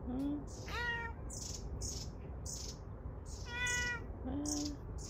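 A tabby mountain cat meowing in greeting: two clear meows about three seconds apart, each rising then falling in pitch, with shorter, lower calls at the start and near the end.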